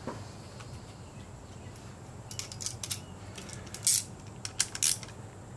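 Light clicks and scrapes of a hand tool being handled against the motorcycle's engine case bolts. They come as a few irregular clusters of short clicks, one a couple of seconds in and another near the end.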